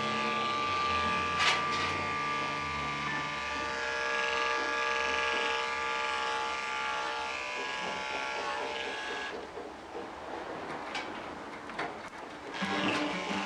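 Andis 5-speed corded electric dog clipper with a #10 blade under an Oster 1/2-inch attachment comb, running with a steady buzzing hum as it is worked through the coat. The sound thins out for about three seconds from around nine seconds in.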